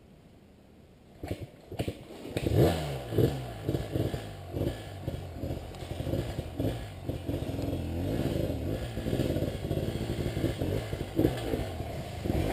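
Enduro dirt bike engines revving in uneven bursts as riders climb a steep trail, growing louder as they come closer. A couple of knocks come just before the engines start to be heard, about two seconds in.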